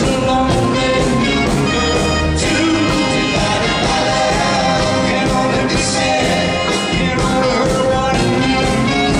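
Live rock band playing a medley, loud and steady, with a singer's voice among the instruments.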